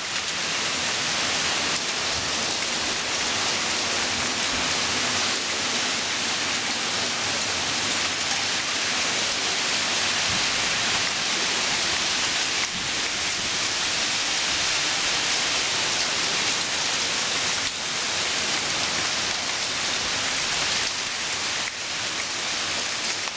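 Heavy rain from a severe thunderstorm pouring steadily onto a paved driveway and yard, a dense, even hiss with no break.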